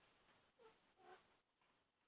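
Kitten making two faint, short, pitched growling noises, about half a second apart, in warning over her toy.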